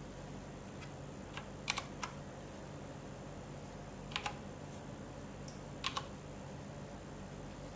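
Keystrokes on a GALAX HOF mechanical gaming keyboard, a few sharp clicks at a time: a handful between one and two seconds in, a pair about four seconds in, and another pair near six seconds. A steady low hum runs underneath.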